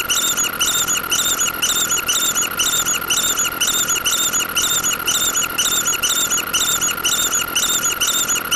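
A sped-up, looped squeaky sound effect: short high-pitched squeaks repeating evenly, about two to three a second, over a steady high tone.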